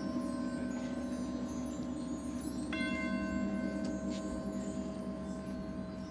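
Marching band show music in a soft, sustained passage: bell-like percussion tones ring out over a held low chord. A new bell chord is struck about two and a half seconds in and rings on.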